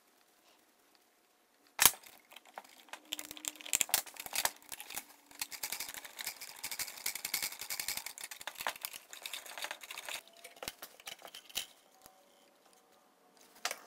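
Hands handling insulated wires and plastic parts in a small wooden relay box: a sharp knock about two seconds in, then several seconds of crinkling and small clicks that fade out, with a few more clicks near the end.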